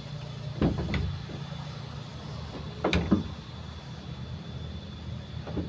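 Steady low rumble of passing road traffic and wind on the microphone, with three short knocks, about half a second in, about three seconds in and near the end, over a faint steady high whine.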